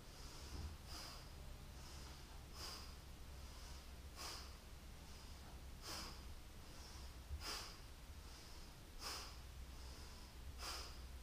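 A woman's faint, rhythmic exercise breathing: short, sharp breaths through the nose, slightly more than one a second, every other one stronger, paced with side-to-side twisting stretches.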